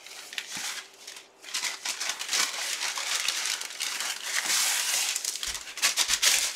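Brown packing paper crinkling and a drawstring bag rustling as a hand digs into the bag and pulls out a paper-wrapped item. The crinkling starts faint, grows louder about two seconds in, and has a few dull bumps near the end.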